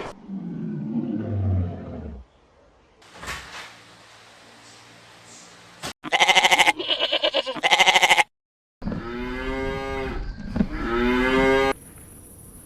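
Farm animals calling in a string of separate short clips: a low call falling in pitch at the start, two loud wavering calls about six seconds in, and a long call near the end that dips in pitch and rises again.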